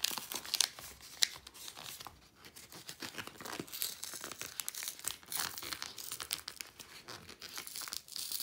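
Cardboard-and-plastic blister pack being torn open by hand: tearing and stiff crinkling in irregular bursts, with a brief lull about two seconds in.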